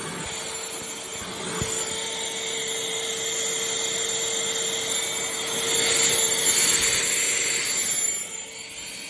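Shark CH701 Cyclone Pet cordless handheld vacuum running: a steady motor whine over a rush of suction air. It grows a little louder, then drops off about eight seconds in.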